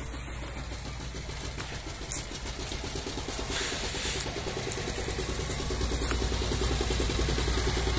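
A two-wheel power tiller's diesel engine runs with a fast, even chug while pulling a loaded trolley, growing steadily louder as it approaches.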